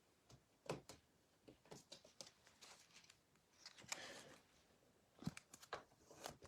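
Near silence with faint, scattered clicks and a brief soft rustle about four seconds in: trading cards being handled and slid through the hands.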